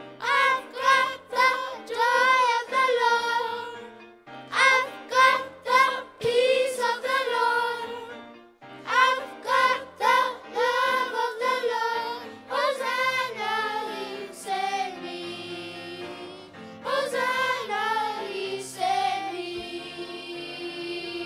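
Children's choir singing in phrases with short breaks between, closing on a long held note near the end.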